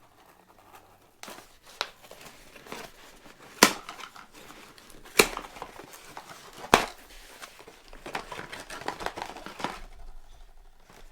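Packaging being torn open: three sharp rips about a second and a half apart, then a few seconds of crinkling as the contents of the box are handled.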